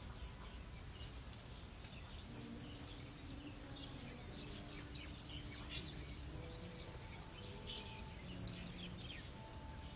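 Birds chirping faintly in short scattered calls over a steady low outdoor rumble, with one sharp tick about seven seconds in.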